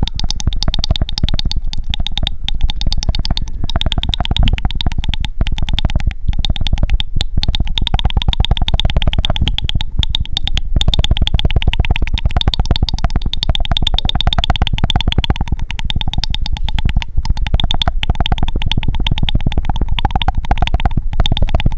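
Close-miked ASMR mouth sounds: a fast, even stream of wet tongue clicks, many a second, with brief gaps now and then.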